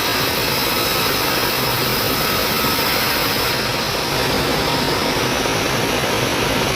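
Sawmill saw running steadily, a loud, even machine noise with no breaks.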